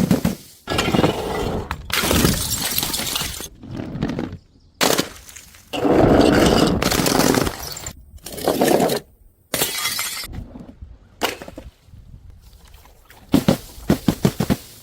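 Glass bottles smashing, one after another: several separate sudden crashes, each trailing off in scattering shards, with a quick run of small sharp clinks near the end.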